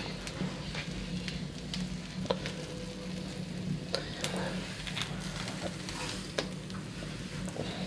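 Whole lamb sizzling on a hot grill grate over embers, with scattered sharp pops as fat spits. A steady low hum runs underneath.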